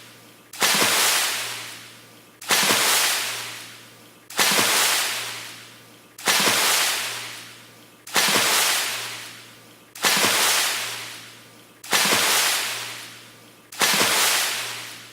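A water splash repeated at an even pace, about one every two seconds: each starts suddenly and dies away over about a second and a half, eight in all, each the same as the last.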